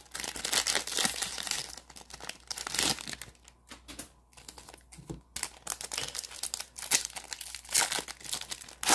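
Foil trading-card pack being crinkled and torn open by hand, crackling in bursts, with a quieter pause a few seconds in before the crinkling picks up again.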